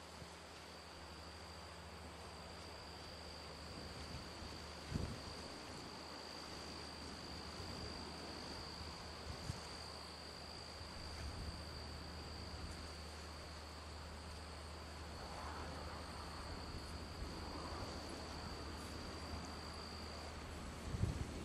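Steady high-pitched chorus of insects in a summer hay field, which stops shortly before the end, over a low steady rumble. A few dull thumps, the loudest about five seconds in and near the end.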